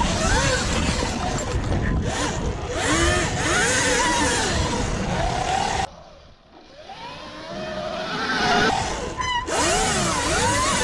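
Sur-Ron Light Bee X electric dirt bike's motor whining under throttle on its 30 kW setting. The whine sweeps up and down in pitch with the throttle over a rushing noise. It cuts off abruptly about six seconds in and then builds back up.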